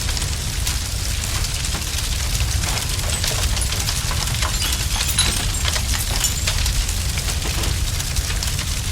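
Fire burning, with a steady low rumble and many sharp crackles and pops, thickest around the middle.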